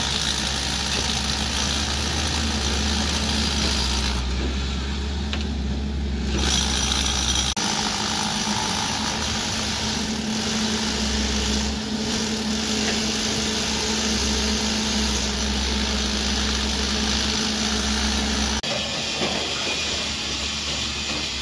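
Steady construction-site machine noise with a low hum, beginning with a power drill boring into a concrete wall. The sound changes abruptly three times as different clips cut in.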